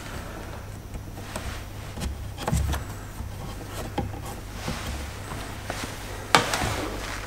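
Hands handling a rubber vacuum hose against a plastic intake manifold: scattered light knocks and clicks, with a louder rustling scrape about six seconds in.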